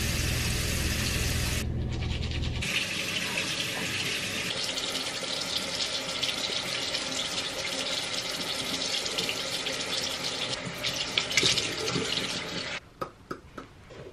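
Bathroom sink tap running steadily into the basin while a face is washed, then shut off suddenly about a second before the end, leaving a few faint clicks. A low rumble sits under the water for the first few seconds.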